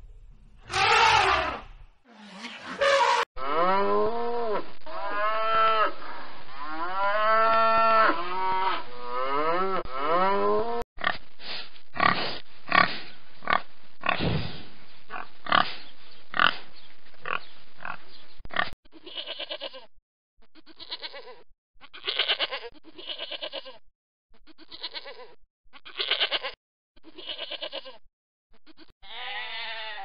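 A run of animal calls: loud African elephant calls in the first few seconds, then a series of long squealing calls that rise and fall, then pigs grunting in short repeated bursts, and sheep bleating at the very end.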